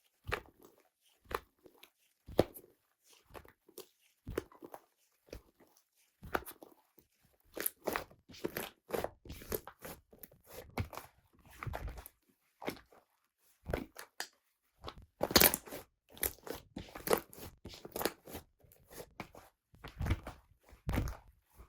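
Slime being squished and pressed by hand, giving irregular sharp clicks and pops, sparse at first and coming thicker from about seven seconds in.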